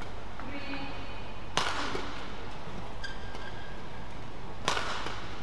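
Badminton rackets striking the shuttlecock in a rally: two sharp hits about three seconds apart, with brief shoe squeaks on the court floor between them.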